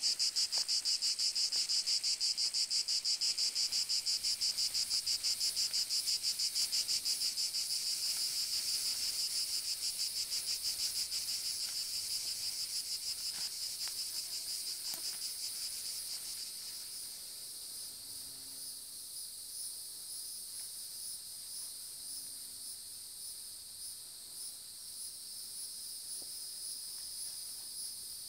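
Dense chorus of insects, a high-pitched, rapidly pulsing trill, loudest at first and fading gradually over the first half to a fainter, steady chorus.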